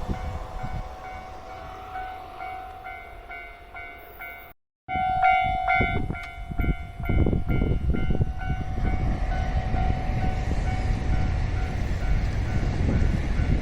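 Level-crossing warning bell ringing in a fast repeating two-beat pattern while a train runs past with a heavy rumble and wheel clacks. The sound cuts out completely for a moment about four and a half seconds in, then returns louder.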